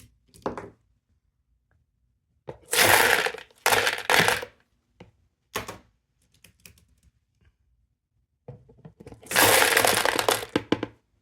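Loose 9mm brass-cased cartridges poured from their boxes into an ammo can: two pours of about two seconds each, a dense rattling clatter of rounds, with a few small clicks and knocks between them.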